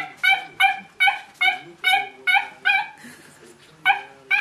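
High squeaks as a puppy tugs and bites at a plush cat toy, in a quick regular run of about nine at the same pitch. After a short pause come two more near the end.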